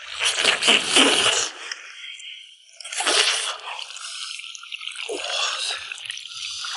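Wet, squelching sounds of sticky braised goose being pulled apart and eaten close to the microphone, loudest in a burst at the start and another about three seconds in.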